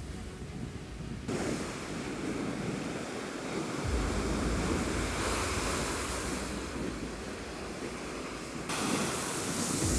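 Heavy surf on a cyclone-stirred sea: waves breaking and washing in, swelling in surges about a second in and again near the end. Wind buffets the microphone with a low rumble.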